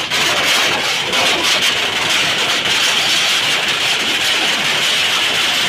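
A 50,000-shot firecracker string (a 'wala') going off, its thousands of small bangs merging into one dense, continuous crackle.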